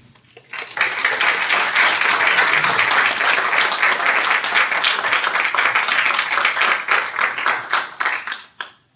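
Audience applauding, starting just under a second in and dying away near the end.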